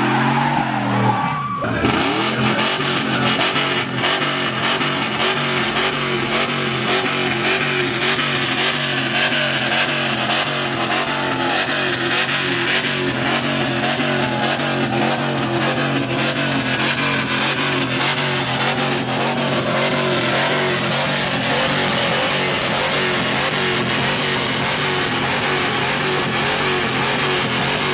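A pickup truck doing a burnout, its engine held at high revs with the tyres spinning, for the first couple of seconds. About two seconds in this switches abruptly to loud music with guitar over a steady noisy roar.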